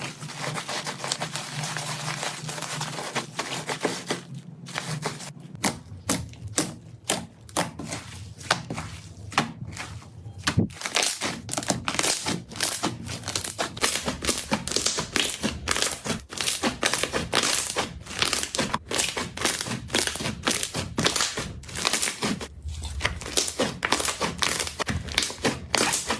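Slime being squeezed and pressed by hand: a soft rustling for the first few seconds, then a dense run of sticky clicks, pops and crackles, several a second.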